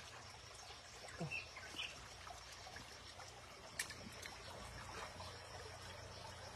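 Shallow stream water trickling and lapping around a hand groping under the bank. There are a few small splashes, and a sharp click about four seconds in.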